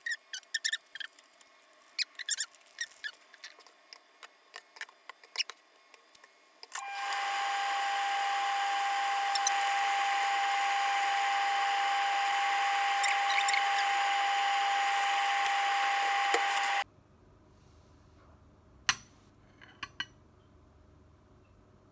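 Light clicks and taps of utensils and packaging for several seconds, then a loud, steady sizzling hiss of noodles cooking in a hot pan on an induction hob, with a steady whine running through it. The hiss cuts off suddenly about ten seconds later, leaving near quiet with one sharp click.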